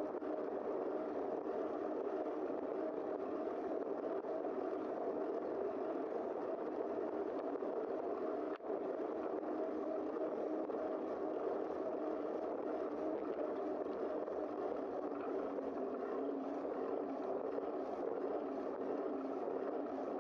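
Steady wind and rolling noise from riding a bicycle, picked up by a camera mounted on the bike, with a brief drop about eight and a half seconds in.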